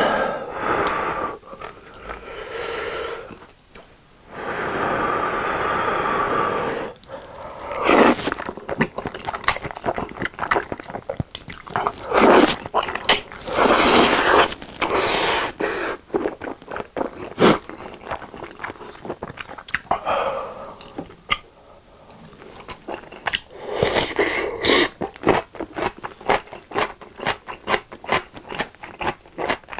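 Close-miked eating of carbonara Buldak instant noodles: long wet slurps of noodles a few seconds in and again around the middle, with sticky chewing and mouth smacks in between.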